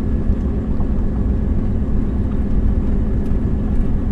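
A 22-foot RV's engine running and its tyres rolling on an unpaved gravel road, heard from inside the cab as a steady low rumble.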